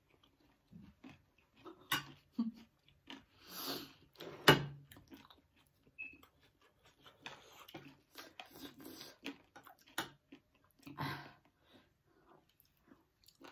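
Close-miked chewing and eating sounds of people eating spiced puffed-rice chatpate and fried pakoda fritters, with short wet mouth noises and scattered sharp clicks. The loudest click comes about four and a half seconds in.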